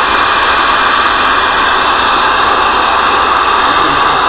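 General Lee 10-meter radio's speaker giving out loud, steady static hiss with the squelch open and no voice on the channel.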